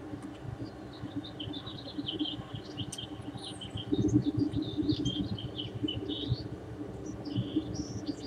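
Small birds chirping in a rapid stream of short calls, over a steady low rumble that grows louder about halfway through.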